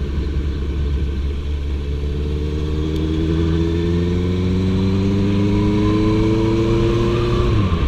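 Honda CB650F's inline-four engine pulling under acceleration, its pitch rising slowly for several seconds, then dropping sharply near the end at a gear change.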